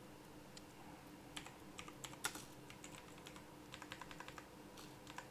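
Computer keyboard keystrokes, faint and irregular, in scattered runs of a few keys, over a faint steady hum.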